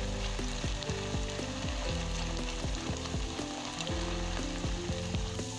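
Diced potatoes deep-frying in hot oil, a steady sizzle, stirred now and then with a metal turner. Soft background music with a steady beat plays underneath.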